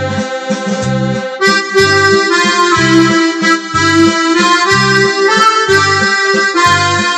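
Electronic keyboard playing a melody with an accordion voice over a bass accompaniment, its low bass notes sounding about once a second; the melody moves higher about a second and a half in.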